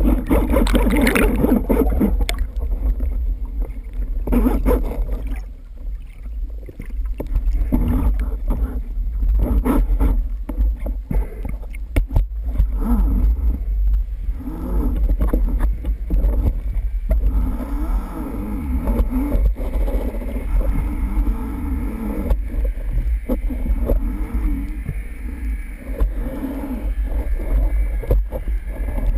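Underwater water noise picked up by a camera mounted on a speargun: a constant deep rumble of water moving past the housing, with bubbles rushing past in the first couple of seconds and scattered sharp clicks.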